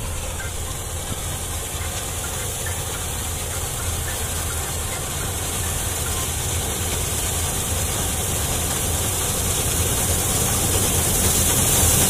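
Combine harvester running as it cuts wheat: a steady engine drone under a high hiss, getting steadily louder as the machine comes closer.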